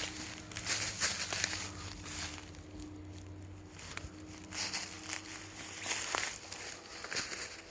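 Intermittent rustling and footsteps: short crunchy bursts come every half second to a second, with a quieter stretch about three seconds in. A faint steady hum runs underneath.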